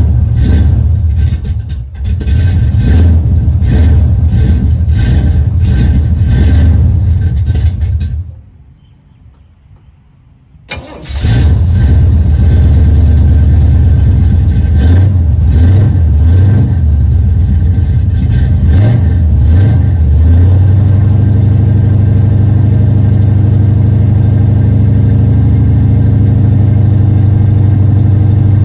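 Cold start of a mild-cammed, Vortec-headed 383 stroker small-block V8: the engine runs with a rhythmic pulsing, cuts out about eight seconds in, and fires again with a sharp burst about three seconds later. It runs unevenly for several seconds, then settles into a steady idle.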